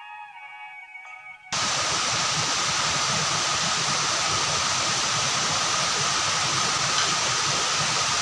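Background music for about a second and a half, then a sudden cut to the steady rush of a waterfall's falling water.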